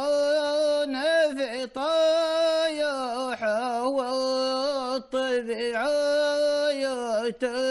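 Unaccompanied male voice chanting a Gulf Bedouin shilla in Arabic: long held notes with wavering, melismatic ornaments, broken by a few short breaths.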